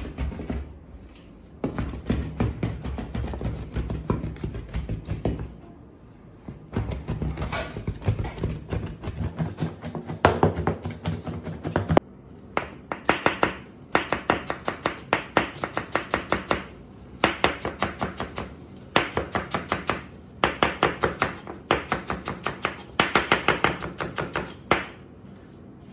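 Rapid chopping on a plastic cutting board: first a large two-handled curved mincing knife rocking through raw fish, then, about halfway through, a chef's knife chopping parsley in quick bursts of sharp knocks with short pauses between them.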